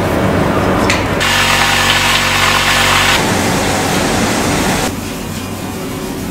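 A small power tool whirs for about two seconds, set among irregular scraping and rubbing sounds of hand work on a 3D-printed piece; the scraping grows quieter near the end.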